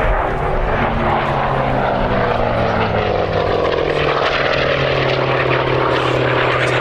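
Hawker Fury FB.II's 18-cylinder Bristol Centaurus sleeve-valve radial engine running at power in a flypast. Its pitch falls over the first few seconds as the aircraft passes, then holds steady as it draws away.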